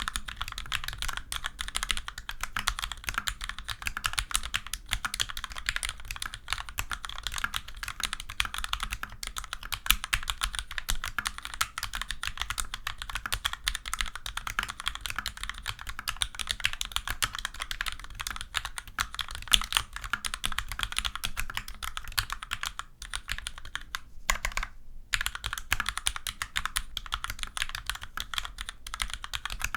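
Fast, steady typing on a Magicforce 68 mechanical keyboard fitted with vintage Cherry MX Black linear switches and low-profile doubleshot keycaps: a continuous clatter of keystrokes, broken by one brief pause near the end.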